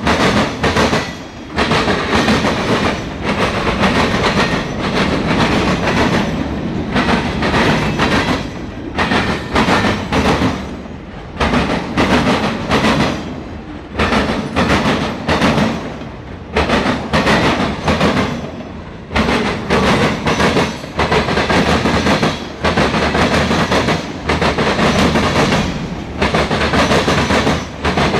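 Freight cars of a Norfolk Southern mixed freight train rolling past, their wheels clacking over the rail joints in quick repeating groups.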